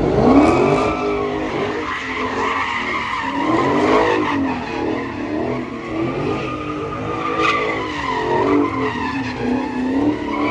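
A car's engine revving in repeated rises and falls while its tyres squeal and skid against the pavement, the sound of a car spinning its wheels in a takeover stunt.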